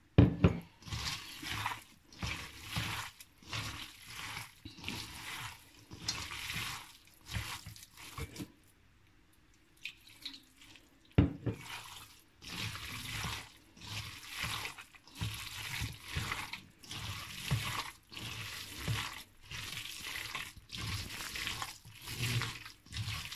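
Hands squeezing and kneading wet minced-chicken momo filling, loosened with a little water, in a steel bowl: a run of short squelches, a little more than one a second, with a pause of about two seconds near the middle. Two sharp clicks stand out, one at the start and one about eleven seconds in.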